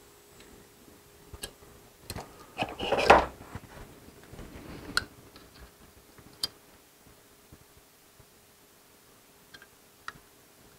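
Scattered small clicks and rustles from hands working a diode laser module while the threaded air-assist fitting is screwed into it, with a louder knock and rustle about three seconds in. A faint steady hum lies underneath.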